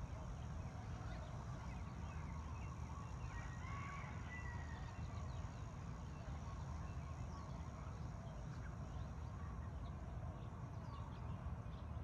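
Hawaiian morning birdsong: many birds chirping and calling at once, with one longer call about four seconds in, over a steady low rumble.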